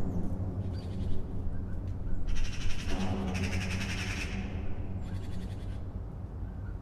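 A low, sustained drone from a film score, with harsh rasping calls layered over it: a short one about a second in, a longer one lasting about two seconds in the middle, and another near the end.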